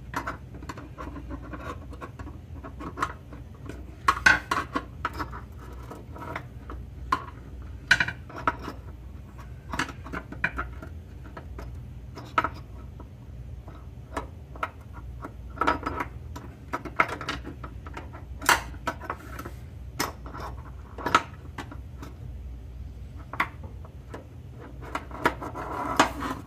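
Irregular metallic scraping, clicks and clinks as a steel plate and washer on a string are pulled and worked up inside the car's chassis.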